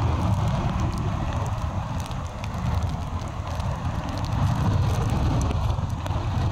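Steady rush of breaking surf and storm wind, with a low, uneven wind rumble on the microphone.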